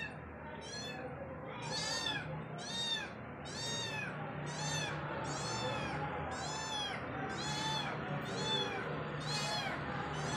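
Young kitten meowing over and over, a dozen or so short high-pitched calls a little under a second apart, each rising and then falling in pitch.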